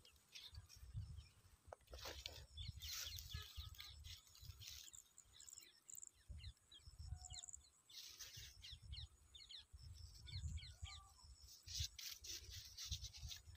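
Faint chirping of small birds over a low, uneven rumble of wind on the microphone, with a few brief rustles of a plastic bag being handled.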